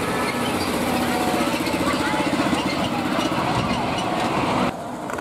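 A train's engine running steadily with a pulsing drone. It cuts off abruptly about four and a half seconds in.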